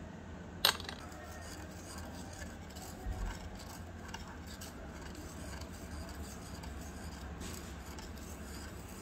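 A sharp click a little under a second in, then a tiny metal spoon stirring milk and sugar in a miniature iron kadai, with faint scattered scrapes against the pan and a short low thump around three seconds in.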